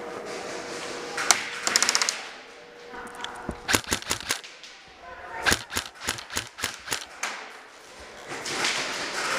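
Airsoft guns firing: a short rapid burst a little over a second in, a few more shots around the middle, then a run of about ten spaced single shots and sharp clicks.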